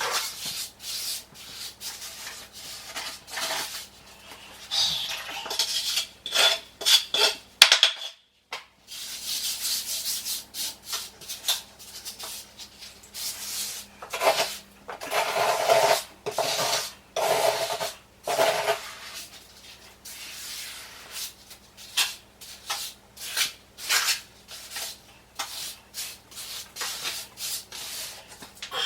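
Steel trowel scraping and rasping through mortar in repeated, irregular strokes, with metallic clinks, as the dry-pack mortar is worked. The sound drops out briefly about eight seconds in.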